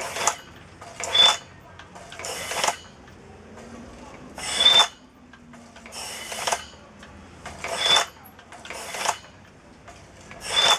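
Compressed air hissing in short pulses, each with a brief high whistle, as a push-button air-blower valve fires air into the spark-plug hole of an air-driven engine once per turn. Eight pulses come at an uneven pace, roughly one every one to two seconds, as the engine turns slowly.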